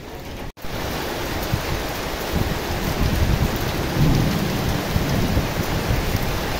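Heavy tropical rain pouring down, a dense steady hiss with a strong, uneven low rumble underneath. The sound drops out for an instant about half a second in, then the rain comes back slightly louder.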